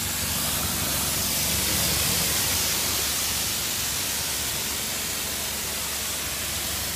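Pressure washer jet spraying water with a steady hiss while the trigger is held, the washer's motor humming low underneath.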